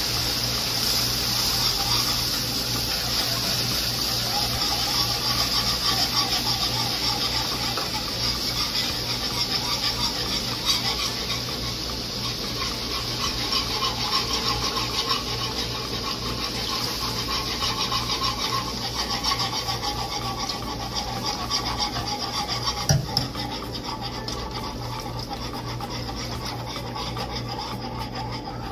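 Wire whisk scraping steadily around a skillet while cold water is poured slowly into a hot flour roux for brown gravy, the pan hissing and sizzling. One sharp knock late on.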